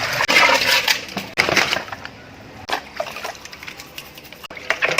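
Irregular clattering of hard objects together with splashing water, busiest in the first two seconds and then thinning to scattered clicks.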